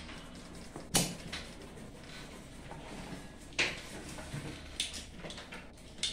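A few sharp knocks and clicks over a low steady hum, the loudest about a second in and three more later.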